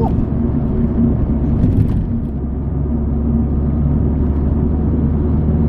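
Mazdaspeed 3's turbocharged four-cylinder engine and tyre noise heard from inside the cabin while driving, a steady low drone with a few faint clicks a little before two seconds in.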